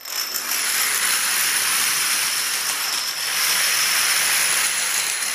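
A large field of dominoes toppling, row after row: thousands of small plastic tiles clattering so fast that the clicks run together into one continuous hissing rattle.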